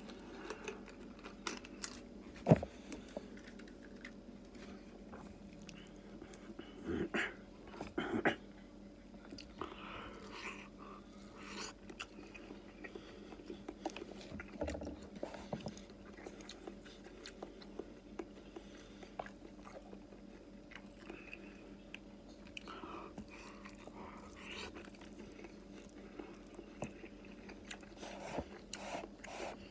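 A person chewing food with the mouth closed: soft, irregular chewing and mouth sounds. There are scattered light clicks, a sharp click about two and a half seconds in, and a faint steady hum.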